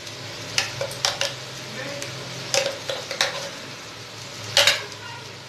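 Slotted wooden spatula stirring and scraping onion-tomato masala in an aluminium pot, with about six sharp knocks against the pot, the loudest near the end, over a low sizzle of the frying masala and a steady low hum.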